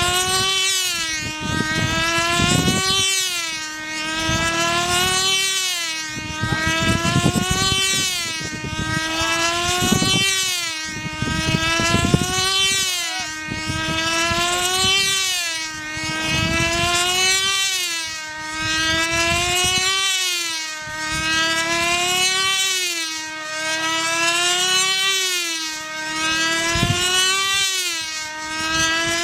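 Small model-aircraft engine on a control-line plane circling the pilot. Its high-pitched whine swells and rises in pitch, then falls away once per lap, about every two seconds. Gusts of wind rumble on the microphone underneath.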